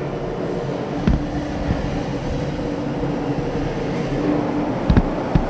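Steady industrial drone of shipyard machinery with a faint steady hum, and a few short knocks, one about a second in and two near the end.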